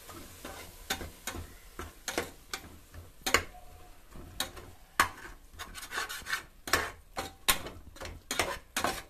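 Spatula scraping and knocking against an aluminium pot while a thick spice masala is stirred and fried, in irregular sharp strokes about one to two a second.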